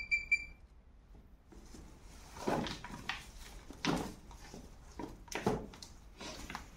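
Handheld metal-detector pinpointer beeping three short times at one high pitch as it is held over the target spot. Then scattered scraping and rustling of soil and grass as the ground is dug by hand.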